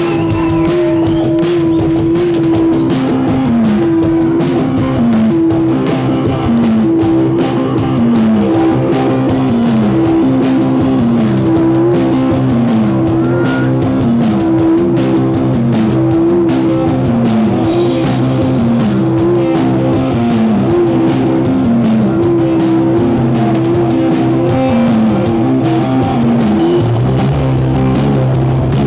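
Rock band playing live: electric guitar repeating a short riff with a downward-bending note, over steady drums. A lower held bass note comes in near the end.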